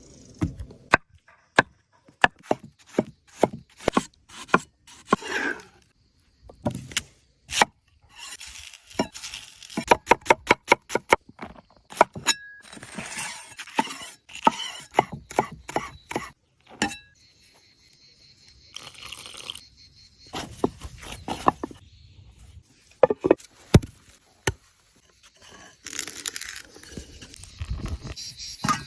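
Food-preparation and cooking sounds: many separate sharp knocks and clinks, with stretches of scraping and hiss between them.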